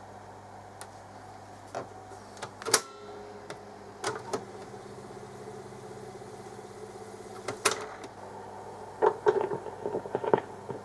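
Cossor CR 1603A reel-to-reel tape recorder's piano-key controls clicking, then the transport rewinding the tape with a steady mechanical whir for about five seconds, stopped by a loud clunk, then several more key clicks. Its fast wind is driven by a big idler wheel with pot metal rot and a split, which the owner blames for the fast forward and rewind not being perfect.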